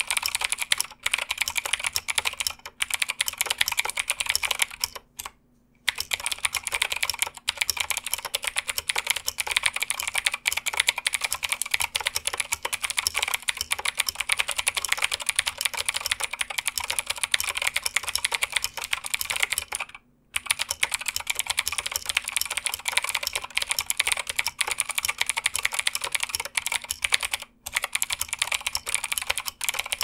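Fast, continuous typing on a Keychron K8 mechanical keyboard with clicky Gateron Blue switches, in its stock aluminum-bezel case with no case foam: a dense stream of key clicks, broken by short pauses about five seconds in, around twenty seconds and near the end.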